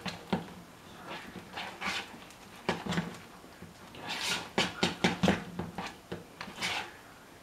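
A metal fork stirring soft deviled-egg yolk filling in a mixing bowl: irregular clicks and tapping against the bowl, with a few longer, hissy scrapes.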